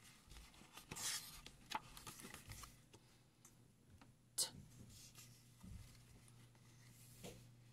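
Pages of a small paperback picture book being turned and pressed flat by hand: faint paper rustles and a few light taps, the sharpest about four and a half seconds in.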